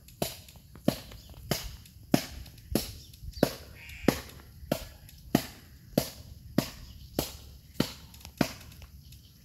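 A steady series of sharp knocks, about one and a half a second, with some fourteen strikes that stop near the end.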